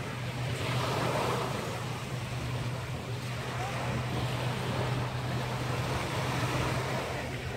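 Sea waves washing in, a noisy rush that swells about a second in and again midway, over a steady low hum.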